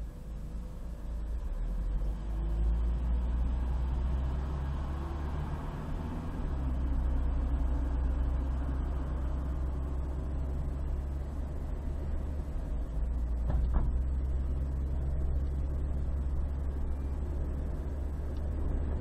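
Driving noise of a car heard from inside the cabin: a steady low rumble of engine and tyres that grows louder about two seconds in as the car pulls away and picks up speed. A single brief knock comes about two-thirds of the way through.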